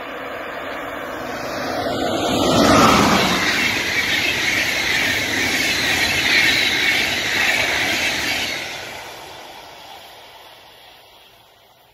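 Deutsche Bahn Intercity passenger train passing at speed. The noise builds to a peak about three seconds in as the front of the train goes by, then the steady rolling rush of the coaches' wheels on the rails. It fades away after about nine seconds as the train recedes.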